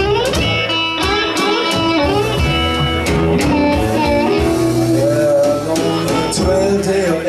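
Live blues band playing: guitar over bass and drums, with bending notes in the melody.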